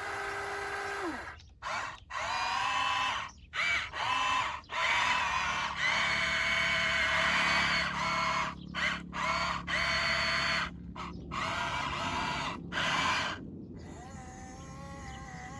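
Small electric motors and gearboxes of radio-controlled construction models whining. They start and stop abruptly many times, the pitch shifting from one run to the next.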